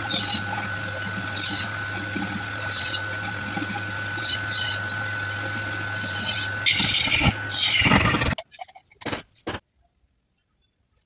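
Electric wood lathe running with a steady hum while a hand-held abrasive rubs against the spinning wooden goblet, the hiss swelling about every second and a half and getting louder near the end. The sound cuts off abruptly about eight seconds in, leaving a few faint knocks.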